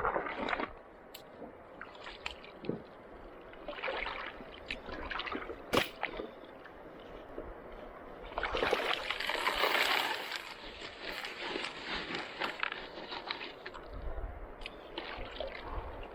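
Water sloshing and splashing in irregular bursts as a gold prospector works in the river, with a sharp knock about six seconds in and a louder run of splashing from about eight and a half to eleven seconds.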